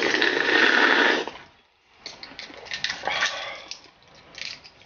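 A long, loud slurp as broth is sucked from a balut (boiled fertilized duck egg) shell, followed after a pause by quieter wet chewing and mouth smacking.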